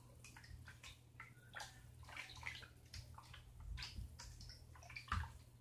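Faint, irregular wet clicks and squishes of a cornstarch mixture being stirred by hand, over a steady low hum.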